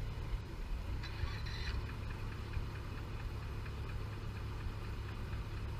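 Vehicle ferry's engine running steadily with a regular ticking knock as the ferry comes in to shore.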